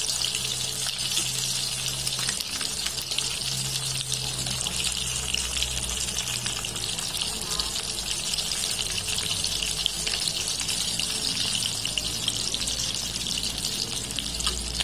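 Small battered fish deep-frying in hot oil in a wok, a steady crackling sizzle. This is the second fry that crisps them.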